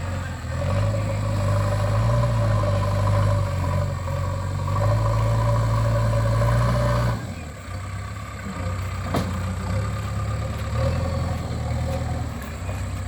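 JCB 3DX backhoe loader's diesel engine running hard with a steady low drone. About seven seconds in it suddenly drops to a quieter, lower note, as if the throttle is eased. A single sharp click comes a couple of seconds later.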